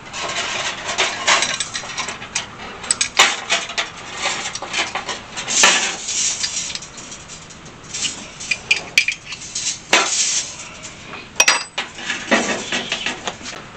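Irregular metallic clinks, clicks and knocks from a hand-held brake-line flaring tool and its steel parts being handled and adjusted on the end of a brake line, with a short scrape now and then.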